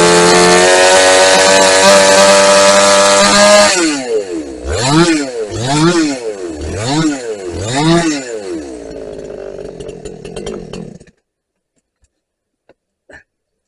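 Vintage Husqvarna two-stroke chainsaw held at full throttle while snedding branches for about four seconds. It is then blipped up and down four times, about a second apart, settles to idle, and cuts off suddenly about eleven seconds in.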